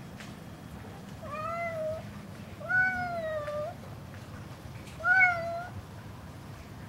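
Domestic cat meowing three times, each meow drawn out and rising then falling in pitch; the second is the longest, at about a second.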